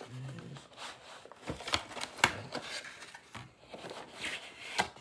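Cardboard processor retail box being handled and turned in the hands: rustling and scraping of the carton, with several sharp taps and clicks, the loudest about two seconds in and again just before the end.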